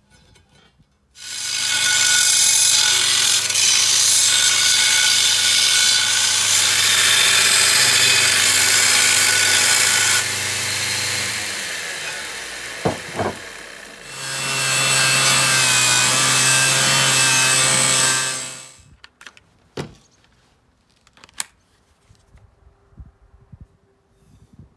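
Electric belt grinder running and grinding a steel disc. A first long pass of about ten seconds fades away, then a second pass of about four seconds starts, and the work stops with a few clicks and knocks of handling.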